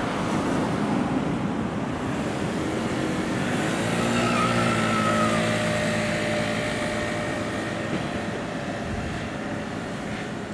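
Street traffic noise on a tram street, with a vehicle's motor whine that rises and then holds steady for a few seconds, starting about three seconds in.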